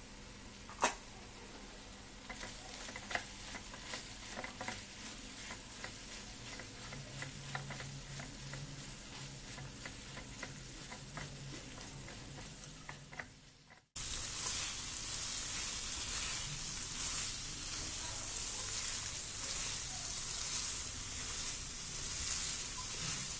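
Chicken pieces sizzling and bubbling in thick masala in a frying pan while a spatula stirs them, with many sharp clicks of the spatula against the pan. About two-thirds of the way through, the sound cuts to a louder, steadier high sizzle as the masala fries dry and the oil separates.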